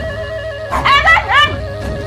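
A dog yipping, three or four short, high yelps close together about a second in, over steady background music.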